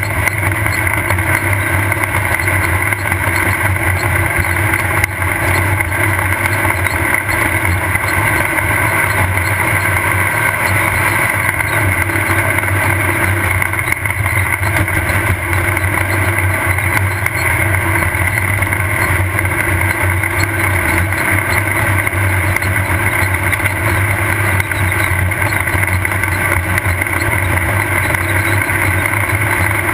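Off-road race vehicle's engine running at a steady speed, heard from a camera on board, a loud unbroken drone holding one pitch with no revving or shifts.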